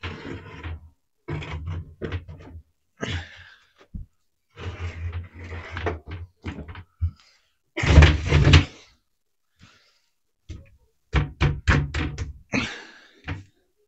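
Wooden cabinet frame being pushed and knocked into a concrete kitchen base: irregular thuds, bumps and sliding noises of the frame against the opening, the heaviest shove about eight seconds in, then a quick run of sharp knocks a few seconds later.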